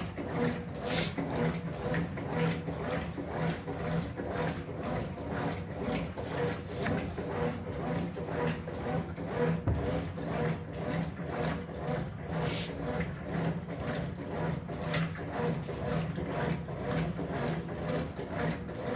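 Top-loading washing machine agitating: a steady rhythm of short swishing strokes, about three a second, as the agitator churns the wash load, over a steady motor hum.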